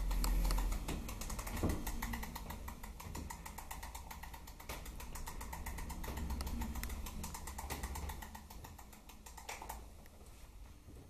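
Fast, even clicking from the costume's wind-up key, turned by a battery-driven motor through a flexible drive, with a low hum under it. The clicking fades out near the end.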